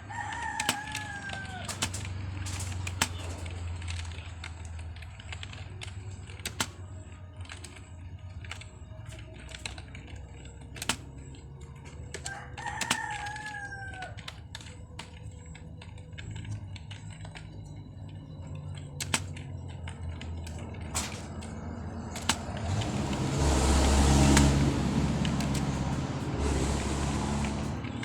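A rooster crowing twice, each crow about a second and a half long and falling in pitch, the second about twelve seconds after the first. Scattered sharp clicks run between them, and a loud rushing noise swells and fades near the end.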